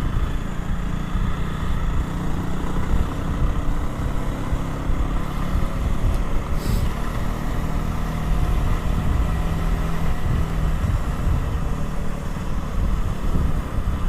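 A 125 cc motorcycle engine running at a steady pace while riding, heard over a constant low rumble of wind and road noise. A short click sounds about halfway through.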